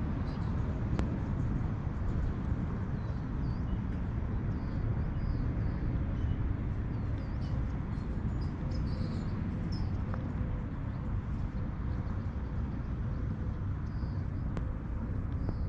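Steady low outdoor rumble, with small birds chirping now and then over it.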